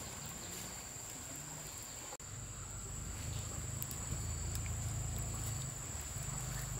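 Insects, a steady high-pitched trill, over a low hum that grows louder about two seconds in.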